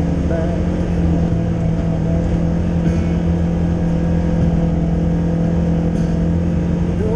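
Side-by-side off-road vehicle's engine running at a steady cruising speed, heard on board as a constant drone with no revving.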